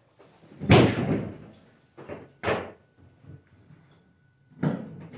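Knocks and clatter of tools and their storage being handled off to the side: a loud thump about a second in, two shorter knocks a little after two seconds, and another knock near the end.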